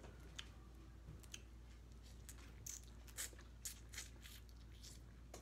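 Cooked Dungeness crab shell being picked apart by hand: faint, scattered clicks and crackles as the meat is pulled out.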